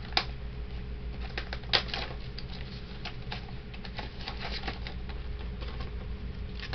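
Fireworks being handled by hand: scattered clicks and rustles of cardboard tubes and packaging, with a sharper knock just after the start and another a little under two seconds in, over a steady low hum.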